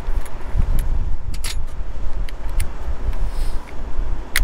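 Low wind rumble buffeting the microphone, with scattered light metallic clicks and rattles as self-tapping screws and a cordless drill are picked up and handled.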